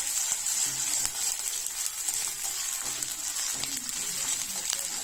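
Ginger paste sizzling as it fries in melted ghee in a pan: a steady high hiss with a few faint clicks.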